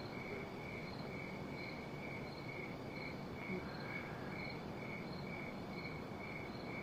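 A cricket chirping steadily, about two short high-pitched chirps a second, over a faint hiss.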